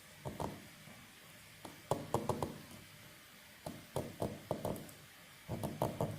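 Light knocks and taps in four short clusters of several quick strikes each, a second or two apart.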